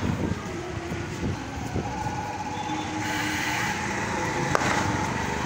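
Street traffic noise, vehicles running along a busy road, with a thin steady high tone held through most of it and one sharp crack about four and a half seconds in.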